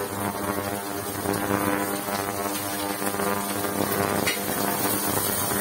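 Havells induction cooktop buzzing with a steady hum while heating a pressure cooker. A spoon clicks against the pot once, about four seconds in.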